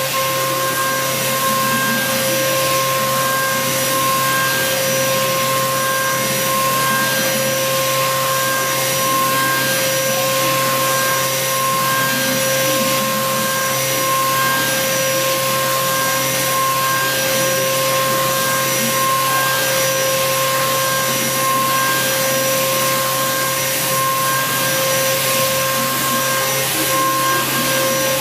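Heavy-duty four-flute 10 mm end mill turning at 7,200 RPM in a CNC mill, cutting hardened 50 HRC medium-carbon steel at a fast feed: a steady whine of several held tones over a continuous hiss.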